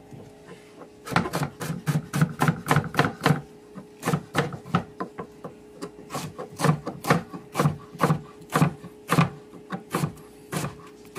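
Chef's knife slicing banana blossom on a cutting board: quick, regular knocks of the blade through the layered bracts onto the board, about three a second, starting about a second in.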